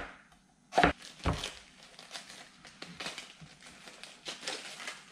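Two sharp knocks on a wooden cutting board about a second in, then fainter crisp crinkling and tearing as leaves are pulled off a head of iceberg lettuce.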